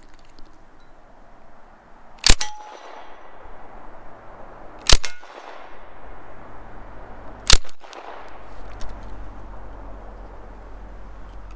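Thompson submachine gun fired three single shots, about two and a half seconds apart, each sharp crack followed by a short echo.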